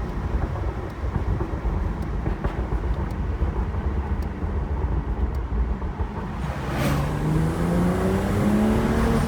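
BMW 335i's N55 turbocharged inline-six with a catless downpipe, a low steady rumble while cruising. About seven seconds in there is a short sharp crack, then the engine pulls hard with its note rising steadily as the car accelerates.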